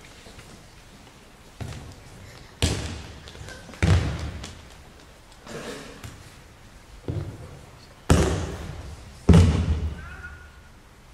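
Bodies hitting tatami mats in aikido throws and breakfalls: about seven thuds and slaps, the loudest near the end, each trailing off in the hall's echo.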